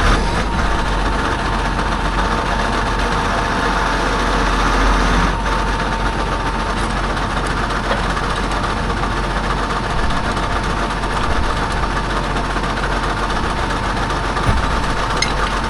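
Tractor engine idling steadily, with a constant low hum and a thin steady whine, and a few faint clicks near the end.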